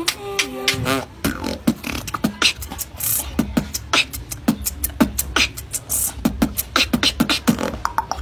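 A boy beatboxing: quick, rhythmic mouth-made drum hits and clicks over a low buzzing bass, with a brief hummed, wavering tone in the first second.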